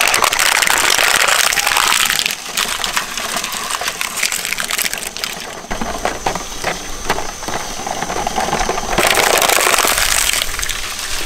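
Shredder crunching and grinding a plastic toy. There is a dense spell of crackling grind for the first two seconds, scattered snaps and cracks after it, and a second heavy spell of grinding about nine seconds in.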